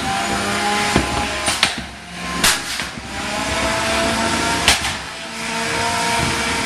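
Beetleweight combat robots fighting: their electric motors whine, holding steady and then sliding up and down in pitch, while several sharp metal hits crack out, the loudest about two and a half and four and a half seconds in.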